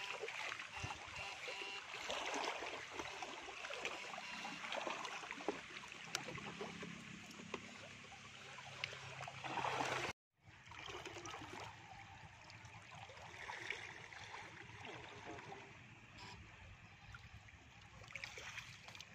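River water running and splashing, with uneven rushes and small knocks. The sound cuts out completely for a moment about halfway through.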